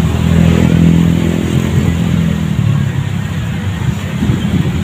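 A motor vehicle engine running steadily close by, fading away about two and a half seconds in and leaving a rough low rumble.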